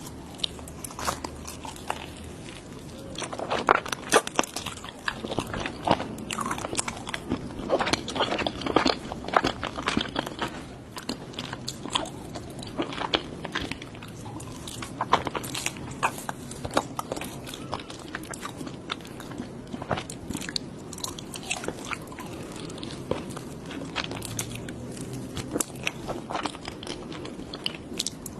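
Close-miked crunchy food being bitten and chewed, mukbang-style: many sharp, irregular crunches, densest in bursts of loud bites.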